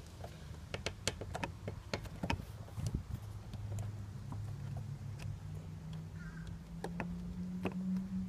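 Light plastic clicks and taps as hands fit hoses and connectors onto the top of a new fuel pump flange. Under them runs a low steady hum that rises in pitch in the second half and stops at the end.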